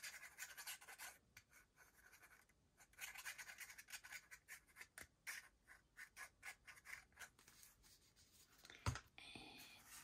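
Faint rustling and scraping of paper and card strips being handled on a cutting mat. About nine seconds in comes a single thump as a glue bottle is set down.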